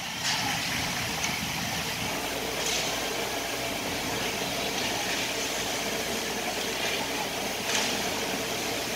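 Ice hockey rink ambience during play: a steady hum with the scrape of skates on the ice, a faint knock about three seconds in and a sharper knock near the end.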